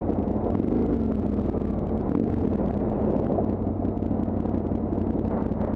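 Adventure motorcycle engine running steadily at low speed along a loose gravel track, with scattered ticks from stones under the tyres.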